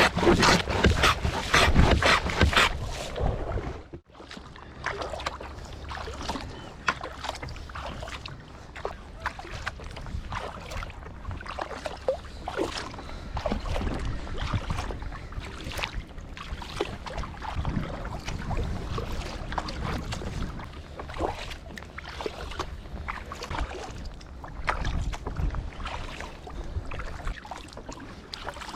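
Water splashing and lapping around a kayak, with a low wind rumble. It is loud for the first few seconds, cuts off abruptly about four seconds in, and carries on as quieter, irregular small splashes.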